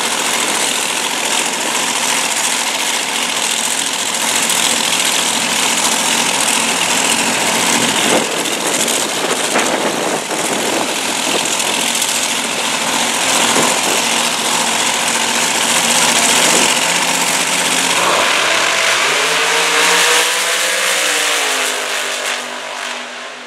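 Two Top Dragster engines running loud at the starting line, then launching about eighteen seconds in: the engine note climbs and fades as the cars pull away down the track.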